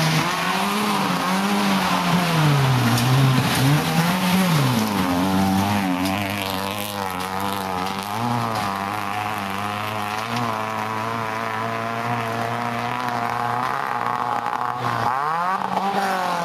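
Old Honda Civic hatchback's engine revving hard as the car drives up a rough dirt hill, its pitch rising and falling over and over. It is loudest in the first few seconds, then runs on a little fainter as the car pulls away.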